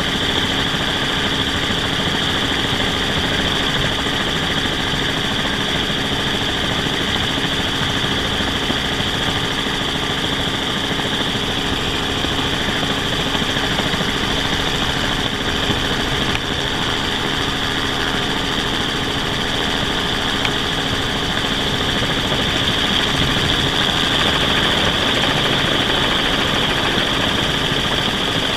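Steady rotor and engine noise heard from aboard a hovering rotorcraft, with a constant high whine over a low drone, rising slightly in level near the end.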